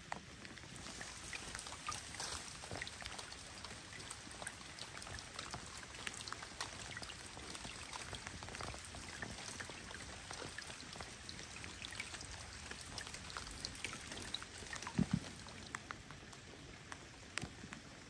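Light rain falling on calm lake water, heard as a faint steady hiss dotted with many separate small drop ticks. A brief low knock stands out about fifteen seconds in.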